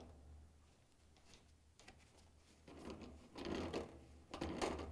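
Pliers tightening a metal washer fill-hose coupling onto the inlet valve: three short bursts of handling noise in the second half, over a faint steady low hum.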